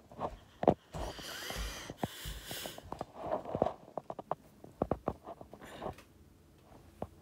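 Handling noise from a hand-held phone: scattered knocks and rustles as it is moved about, with a breathy sniff or exhale about a second in.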